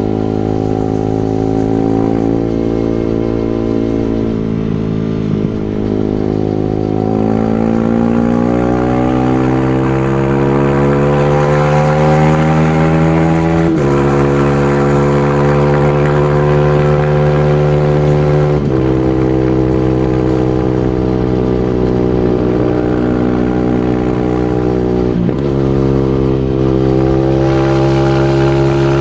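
Supermoto motorcycle's single-cylinder four-stroke engine under hard acceleration. Its pitch climbs steadily, then drops sharply three times as the rider shifts up, with the engine pulling steadily in each new gear.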